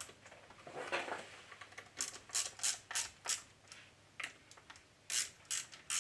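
Small ratchet clicking in short runs, about three clicks a second, as it is swung back and forth to snug down the cylinder head bolts on a small air compressor pump. There is a brief scrape of metal about a second in.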